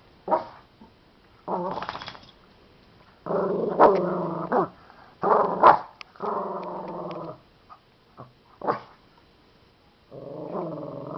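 A dog barking in bouts: a few short sharp barks, near the start, around five and a half seconds and near nine seconds, between longer drawn-out calls lasting a second or more each.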